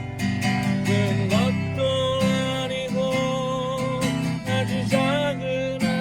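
Acoustic guitar strumming chords, with a sustained melody line held above it that slides between notes about a second in and again near the end.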